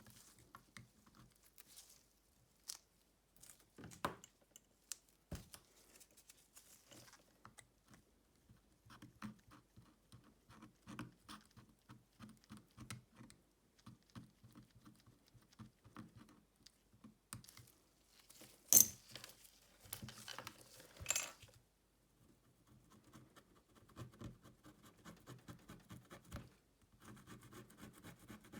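Faint small clicks, taps and scratching of tools and fingers handling a smartphone during repair work, with a sharp click about two-thirds of the way through followed by a couple of seconds of scraping.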